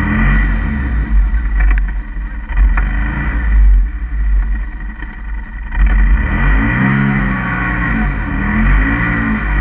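Polaris RZR side-by-side's engine running at high revs as it pushes through deep powder snow, with a heavy low rumble throughout. From about six seconds in, the engine note climbs and dips several times as the throttle is worked, running up past 7000 rpm.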